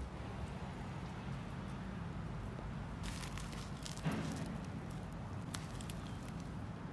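Rustling and crackling of potting soil and a woven soil sack being handled, with a denser burst of rustling about three seconds in and a soft thump just after four seconds. A steady low hum runs underneath.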